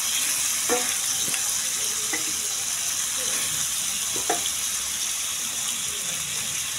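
Chicken pieces sizzling in hot oil on a flat black iron griddle, a steady frying hiss, with a few light knocks.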